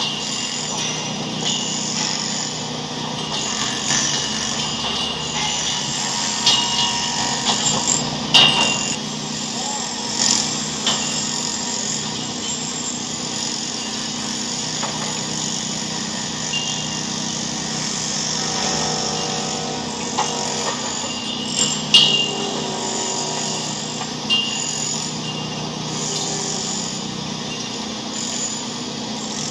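A steady racket of mixed noise: a constant mechanical hum and hiss with scattered knocks and clicks, the sharpest about eight seconds in and again past twenty seconds, and a brief pitched sound in between.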